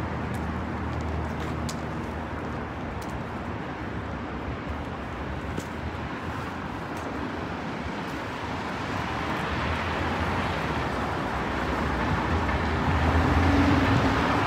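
City street traffic: a steady roadway rumble of passing cars that swells as a vehicle goes by near the end.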